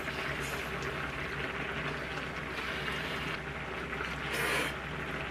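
Noodles and broth being slurped, with a louder slurp about four and a half seconds in, over the steady hiss of a pot simmering on a portable gas stove.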